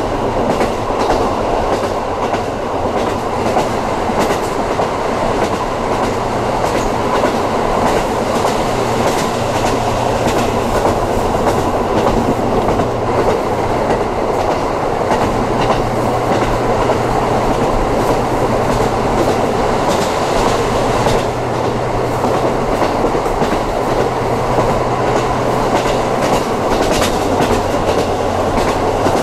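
KiHa 54 diesel railcar running at speed, heard from inside the car: a steady rumble of wheels on rail, with scattered clicks as the wheels pass over rail joints.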